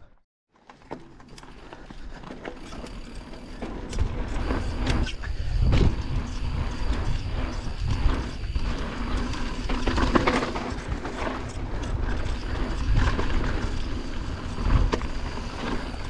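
Mountain bike riding fast down a dirt trail: tyre noise, wind rumble on the mic and the bike rattling and knocking over rough ground. It comes in after a brief silence at the start and surges and eases with the terrain.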